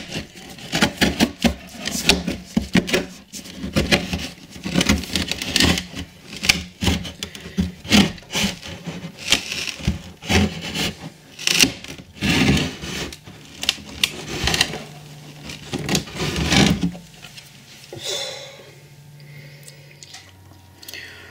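Glued-down MDF model railway platform being prised off the baseboard with a flat blade: irregular scraping, creaking and cracking of wood and glue giving way. It quietens for the last few seconds as the platform comes free.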